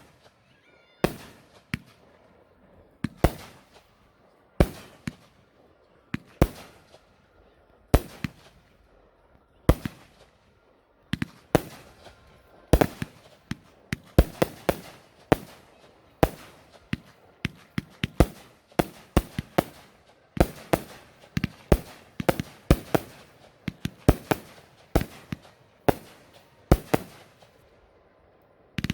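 Fireworks exploding: a series of sharp bangs, each with a short echo. They come about every second or two at first, then in quick volleys after about eleven seconds in.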